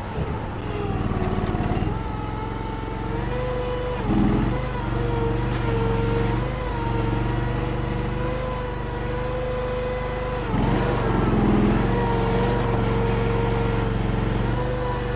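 Honda gas engine of a mini skid steer running under working load. Its pitch sags briefly about four seconds in and again after about ten seconds, as the bucket is pushed into a pile of dirt.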